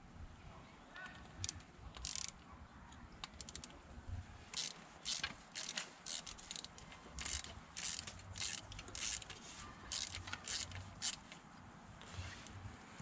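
Hand tools and small metal engine parts clicking and scraping during cylinder head work: a string of short, irregular metallic clicks, with a quick run of rapid clicks about three seconds in.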